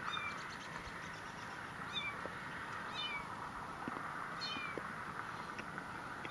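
Kittens mewing: about four short, high-pitched mews, roughly a second or so apart, each dropping slightly in pitch.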